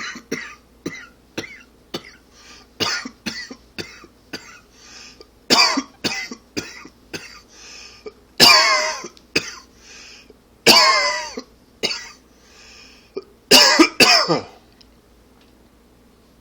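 A man coughing in a long fit: a fast run of short hacking coughs, with several louder, longer, raspy coughs and a final double cough before it stops. The uploader puts the cough down to allergies and smoking.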